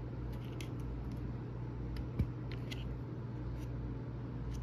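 Faint, scattered small clicks and ticks of toothless pliers gripping and working at a Glock 19 Gen 3 ejector, trying to pull it out of the trigger housing, with one slightly firmer tap about two seconds in. A steady low hum lies underneath.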